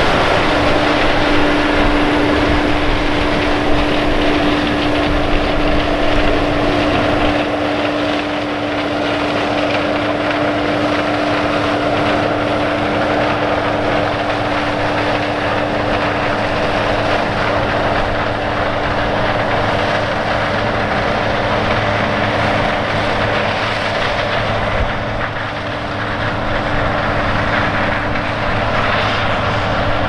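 Steady machine hum: one constant tone over an even wash of mechanical noise, with no change in speed or load.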